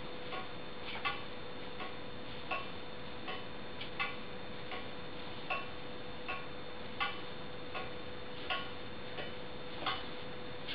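A slow, even series of sharp ticks, about four every three seconds, over a faint steady hum.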